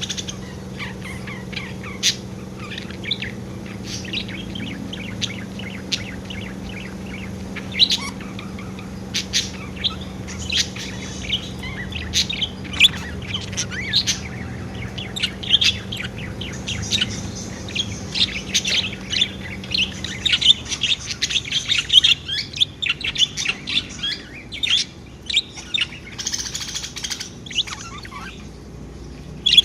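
Pet budgerigars chirping and warbling in a constant stream of quick, high chirps. The chirping grows busier and louder in the second half. A steady low hum sits underneath and fades out about two-thirds of the way through.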